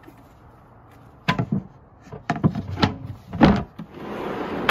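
Plywood drawer dividers and a wooden tabletop lid knocking and clunking as they are set into a large pull-out storage drawer, several knocks with the loudest about three and a half seconds in. Near the end the loaded drawer rolls shut on its metal slides with a steady rushing sound.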